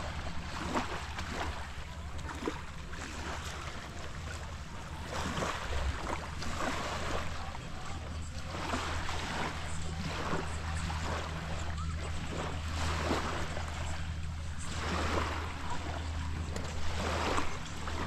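Small waves washing on the shore, rising and falling every second or two, over a steady low engine hum.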